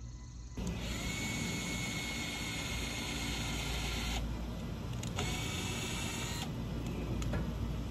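Power drill running in two runs: one of about three and a half seconds with a steady motor whine, then a short pause and a second, shorter run.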